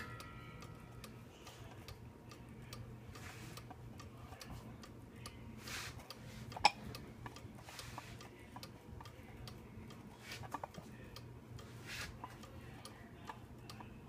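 Chalet-style cuckoo clock ticking steadily, its pendulum escapement clicking at an even beat over a faint low hum, with one sharper, louder click about six and a half seconds in.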